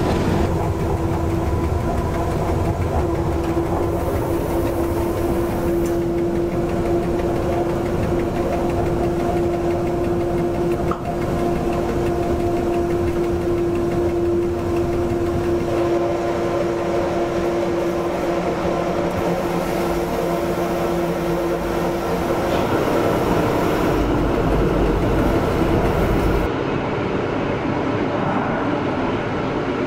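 A Rhaetian Railway metre-gauge electric train running steadily along the track, heard from the front of the train, with a steady hum over the running noise. About 26 seconds in, the sound changes to the train's running noise heard from a passenger coach.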